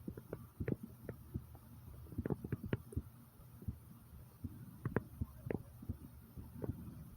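A person's heartbeat recorded close up: muffled low thumps at an uneven pace, some with a sharper crackle.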